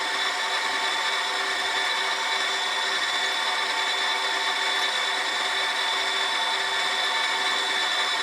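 Small milling machine running steadily with a 3 mm end mill nibbling a slot into a stainless-steel part: an even machine whine with several steady tones over a grinding cutting noise.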